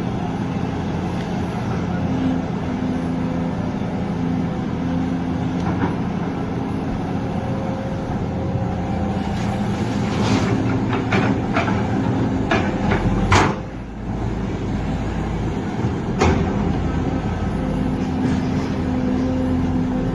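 Hydraulic excavator's diesel engine running steadily under load, with a run of sharp knocks and clanks about halfway through, the loudest about two-thirds in, and one more knock a few seconds later.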